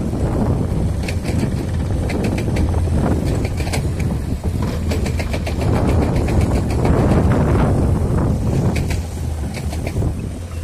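Hydraulic excavator's diesel engine running under load as it digs and loads limestone rock into a dump truck: a steady low drone with scattered sharp knocks and clatter of rock.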